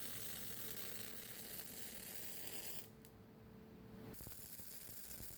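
MIG welding arc crackling and sizzling at a low level; the crackle drops out for about a second roughly three seconds in, then starts again.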